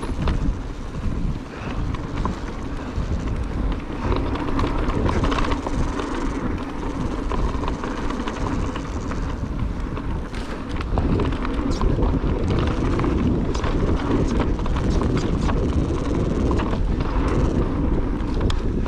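Cube Stereo Hybrid electric mountain bike riding a dirt trail: wind buffeting the microphone and tyres rumbling over the ground. Many small knocks and clicks come from the bike over bumps, and the ride gets louder about eleven seconds in.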